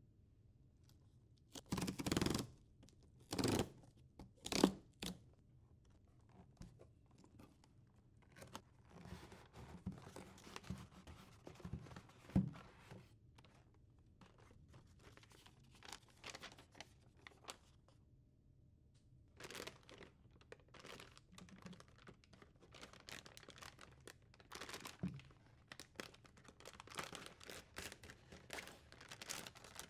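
Toner cartridge packaging being opened by hand. A few sharp tearing noises about two to five seconds in come from the cardboard box being opened. Cardboard and pulp inserts rustle after that, and a foil bag crinkles and is torn open through the second half.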